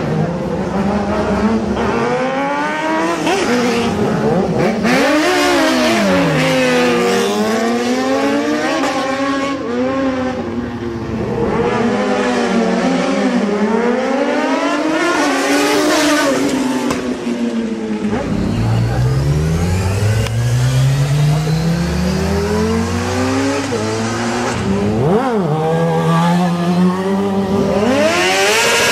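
Motorcycle engines revving hard, their pitch repeatedly climbing and dropping as the bikes accelerate and shift gears. About two-thirds through, one long climb in pitch as a bike pulls away.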